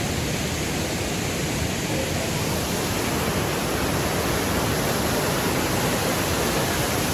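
Steady rushing of a waterfall in full flow, swollen with rainy-season water.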